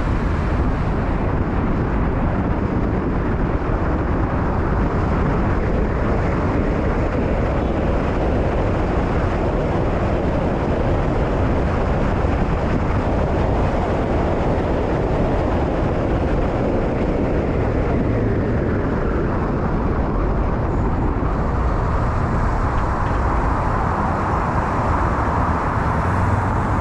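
Steady road noise of a car driving on a city street: tyre and engine rumble with passing traffic. The noise turns a little brighter and hissier over the last few seconds.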